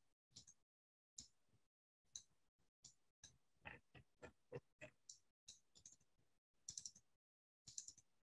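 Faint, irregular clicking of computer keyboard keys, a few presses a second with short pauses, as the keys are tapped to walk an avatar around.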